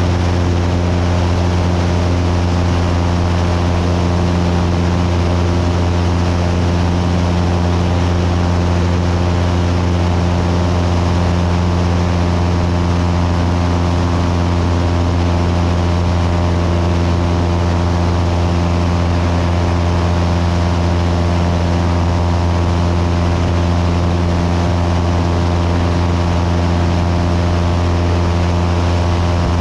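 Cessna 172's piston engine and propeller droning steadily in flight, a constant low hum with no change in pitch or power.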